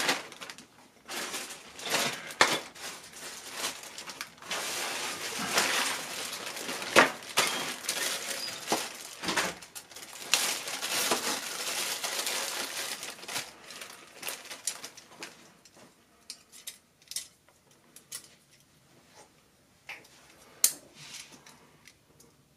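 Hard plastic toy playset pieces being handled and fitted together: a busy stretch of rustling and clicking, thinning after about fourteen seconds to a few scattered light clicks and taps.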